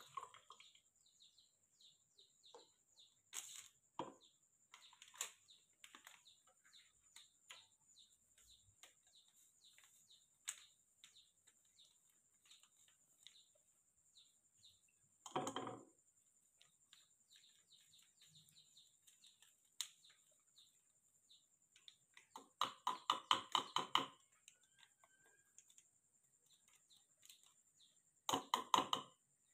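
Handling sounds of making up milk formula: a foil pouch of milk powder crinkling and a small plastic scoop clicking against it. Three short rattly bursts of rapid crackles stand out, the longest about halfway through the second half, with faint scattered ticks between.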